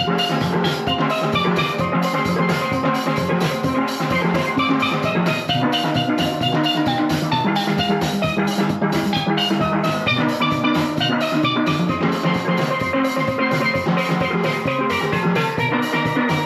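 Steel band playing a lively tune on several steel pans, with drums keeping a steady beat.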